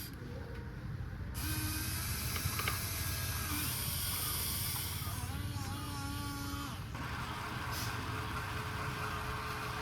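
Small electric gear motors of a radio-controlled toy excavator whirring as it works, with a steady hum and a few wavering whines.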